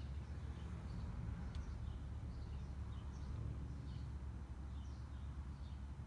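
Garden ambience: a steady low rumble under faint, short high bird chirps repeating every half second or so.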